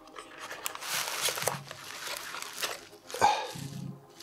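Packaging being handled: rustling and small clicks from a cardboard phone-box tray, a coiled cable and bubble wrap, with one sharp tap about three seconds in.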